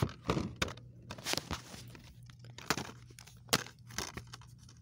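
Plastic DVD case being handled and opened: scattered clicks and crinkling, with a faint low hum underneath.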